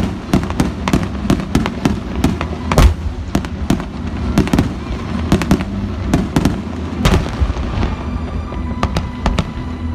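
Fireworks going off in rapid succession: dense bangs and crackling bursts over a steady low rumble, with one especially loud bang about three seconds in.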